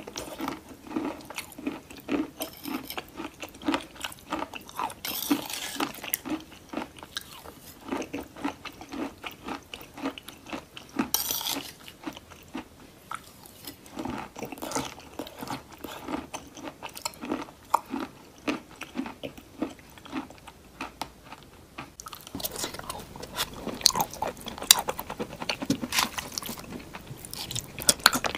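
A person chewing and crunching clay chunks close to the microphone, a steady run of wet crunches and bites. It grows denser and crisper about two-thirds of the way through.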